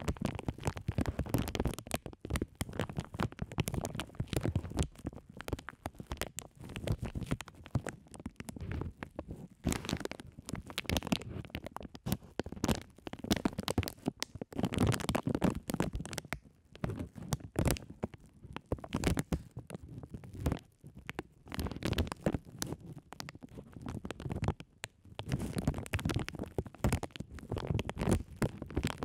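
Clear plastic bags fitted over the microphones being rustled and crinkled by hand: a dense, irregular crackling with a heavy low rumble where the plastic rubs against the microphones.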